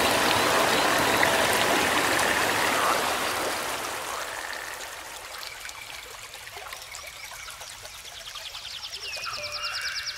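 Stream-like hiss of flowing water in an ambient music soundtrack, fading out over the first few seconds. It gives way to sparse short high tones, with a fast rattling trill near the end.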